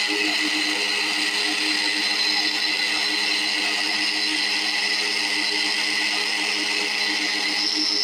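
Electric mixer grinder running steadily, its motor whirring as it grinds tomatoes, green chillies and ginger into a paste.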